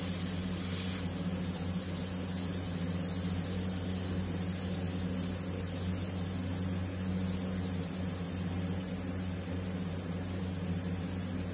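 Gravity-feed airbrush spraying paint: a steady hiss of air through the nozzle over a steady low hum.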